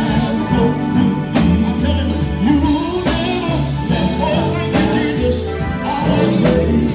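Men's gospel quartet singing live, backed by a drum kit, electric guitar and keyboard.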